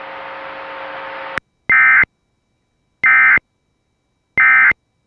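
Emergency Alert System end-of-message signal: three short buzzy data bursts about 1.3 seconds apart, the SAME digital code that closes the alert. Before them, the radio channel's hiss with a faint hum cuts off sharply about a second and a half in.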